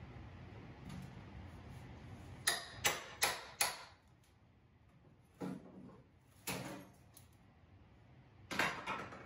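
Steel hammer tapping on a pry bar at the edge of a tiled countertop: four quick sharp knocks about three a second, then a few single knocks, and a short cluster of knocks near the end.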